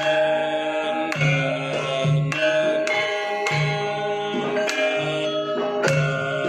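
Javanese gamelan music: struck metallophones ringing in held tones over a steady beat of low hand-drum strokes.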